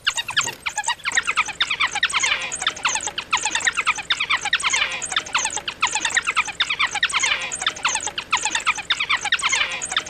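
African wild dogs (painted dogs) twittering: a dense chorus of rapid, high-pitched chirps, many calls overlapping.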